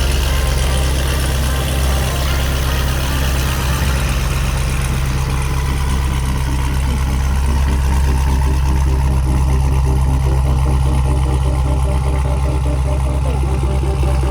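Corvette C7 Z06's supercharged 6.2-litre V8 idling steadily through long-tube Kooks headers, a 3-inch X-pipe and stock mufflers.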